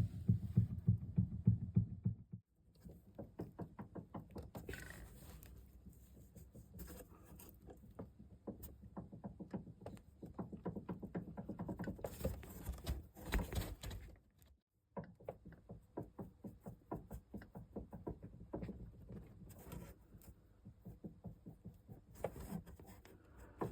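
Rapid, repeated knocking from the lower section of a BMW F30/F10 xDrive steering shaft, several knocks a second, pausing briefly twice. The knock is the fault the clip demonstrates: play in the lower steering shaft section.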